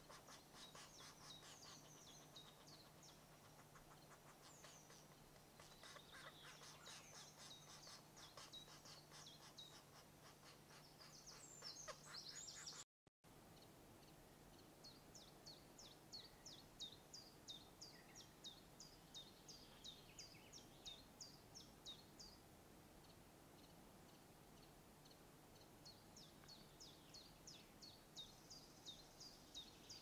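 Faint, fast chatter of green woodpecker nestlings begging at the nest hole, which cuts off suddenly about 13 seconds in. After that come faint runs of thin, high, falling bird notes, several a second.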